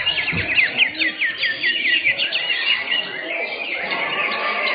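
Cucak hijau (greater green leafbirds) singing in competition, several birds overlapping in a dense stream of fast chirps and whistled phrases, with a run of quick repeated notes in the first half.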